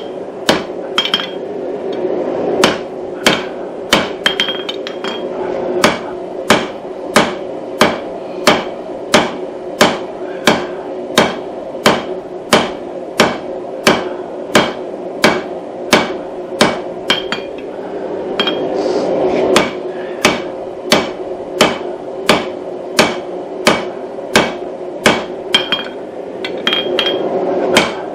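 Hand hammer striking the hot steel of a pipe wrench jaw on an anvil, forging blows at a steady pace of about two a second, over a steady hum.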